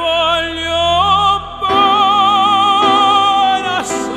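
Operatic tenor singing long held notes with a wide vibrato over instrumental accompaniment. The voice steps up about a second in, briefly drops out, then holds a long note, with a quick breath near the end.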